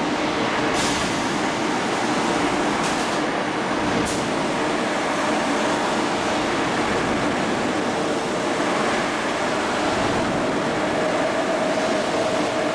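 Large press line running: a steady mechanical rumble with a low hum, a few brief hisses in the first few seconds, and a higher tone joining near the end.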